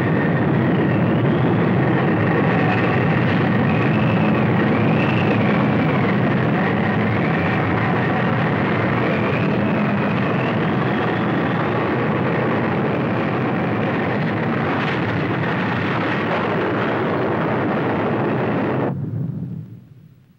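Roar of a tornado's wind: a loud, steady rushing noise with a thin wavering whistle riding above it, fading out near the end.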